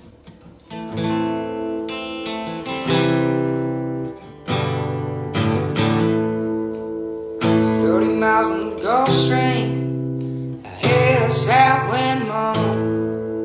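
Acoustic guitar strumming chords in a steady country rhythm, with a singing voice coming in over it about halfway through.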